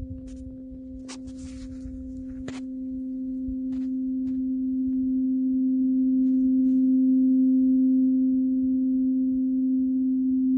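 Large metal tuning fork ringing with one steady low tone and a fainter overtone above it, swelling louder through the middle and holding. Two short clicks come in the first few seconds.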